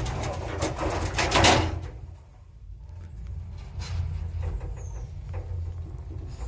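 Sliding car doors of a 1977 Zremb lift rumbling shut and closing with a thump about a second and a half in. A low steady hum and light clicks follow.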